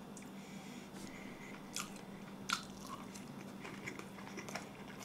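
A person biting into and chewing a piece of sauce-coated fried chicken, with a few faint crunches and wet mouth clicks.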